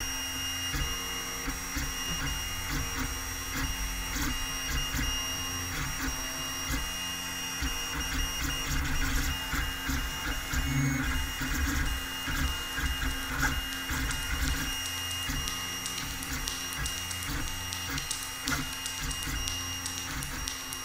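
Opening of an instrumental soundtrack: a steady machine-like whirring texture with irregular low pulses and fine clicking under a few held tones.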